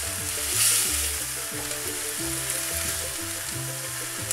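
Peas, carrots and small onions sizzling in butter, oil and a little water in a frying pan while being stirred with a spatula. The hiss is steady, a little louder for a moment near the start.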